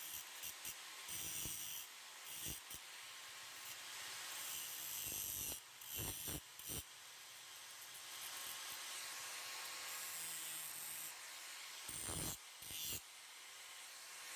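Steel from an old crosscut saw blade being worked with an abrasive tool to shape a knife: a steady, high scraping hiss, broken by a few short knocks about six seconds in and again near twelve seconds.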